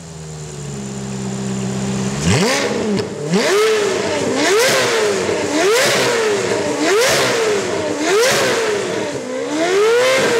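Ferrari F430's flat-plane V8 idling through an IPE Innotech valvetronic exhaust, then, from about two seconds in, revved in a steady series of quick throttle blips, about one a second, each rising and falling in pitch.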